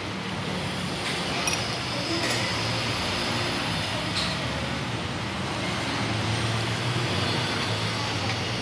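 Steady low rumble and hiss of background noise, with a few light clicks of chopsticks and a spoon against a ceramic noodle bowl as the noodles are stirred.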